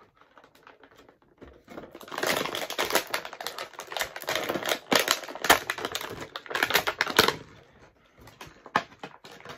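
Action-figure packaging crinkling and crackling as the figure is pulled out of its box, pretty loud. It starts about two seconds in and stops about seven seconds in, with lighter rustling before and after.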